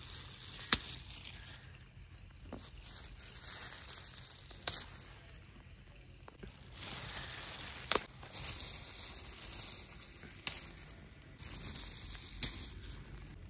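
Okra pods snapped off their stems by hand: five sharp snaps a few seconds apart, over a soft rustle of leaves and a plastic glove.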